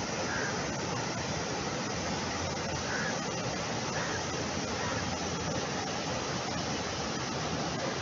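Steady rushing of a monsoon-swollen river pouring over rocky rapids, an even, unbroken water noise.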